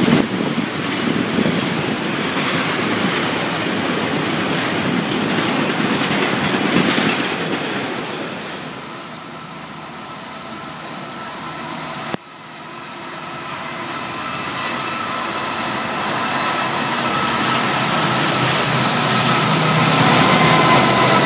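A freight train of double-stack intermodal cars rolls past, wheels clattering steadily over the rail joints, and fades. Then Canadian Pacific EMD SD60 diesel locomotives approach at the head of a freight, growing steadily louder with a few high steady tones over the rumble.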